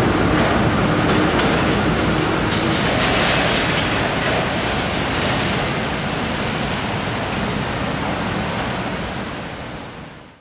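Vintage BMT Standard subway train running away on elevated track: a steady rush of wheel and track noise that slowly grows fainter as it recedes around a curve, then fades out quickly near the end.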